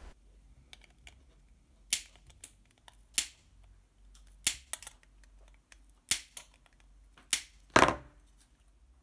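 Cutters snipping off the long soldered pins sticking out of the underside of a circuit board: about nine sharp clipping snaps at irregular intervals.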